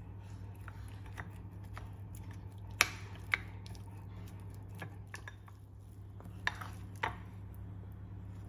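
Wooden spoon stirring and pulling apart boiled chicken and vegetables in a ceramic bowl: soft scraping with several sharp knocks of the spoon against the bowl, over a steady low hum.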